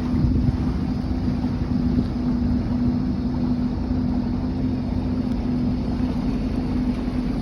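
Boat engine running steadily, a constant low hum over a rumble, with some wind on the microphone.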